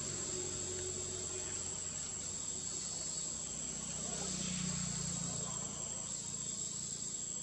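Insects trilling in a steady, high-pitched chorus.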